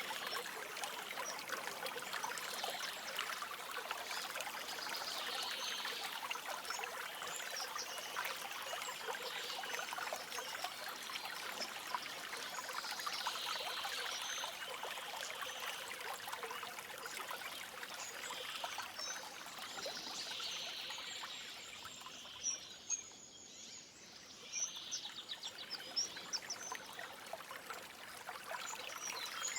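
Shallow forest stream trickling and babbling steadily, with birds chirping faintly over it. The water sound drops briefly about three quarters of the way through, with a few sharp splashes or chirps.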